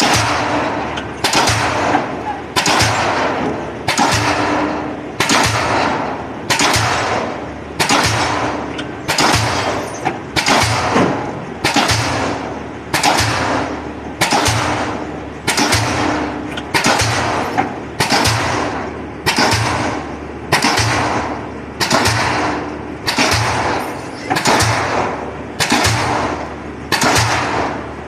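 Pile-driving hammer striking a pile over and over, a little faster than one blow a second, each blow a sharp bang that rings away before the next.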